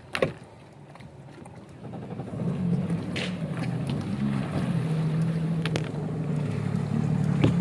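Yamaha jet ski's engine comes in about two seconds in and runs at idle, its pitch shifting a little as it is blipped. A sharp knock sounds just at the start, and a few light clicks are heard over the engine.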